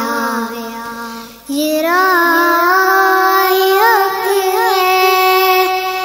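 A young girl singing an Urdu devotional kalam in long held notes. One phrase tails off about a second in, and the next begins with a rising held note decorated with quick trills near the middle.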